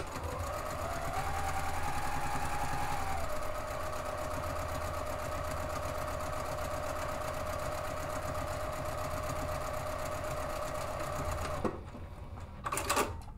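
Juki sewing machine stitching a seam through interfacing-backed fabric panels: a steady motor whine, a little higher in pitch for the first three seconds, then even, stopping abruptly near the end. A short clatter follows just after it stops.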